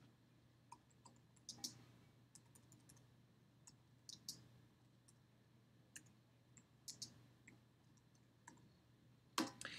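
Faint computer keyboard keystrokes, irregular and widely spaced, as text is typed into a search box, with a louder key or mouse click near the end.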